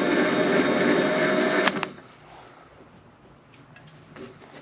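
Warco WM180 mini lathe running under power with the half nut engaged on the lead screw, taking the final single-point thread-cutting pass: a steady mechanical whine with many tones from the motor and gear train. It stops abruptly with a click about two seconds in, and a few faint clicks of handling follow.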